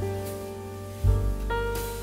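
Soft background piano music, with a new chord struck about halfway through and a few higher notes near the end.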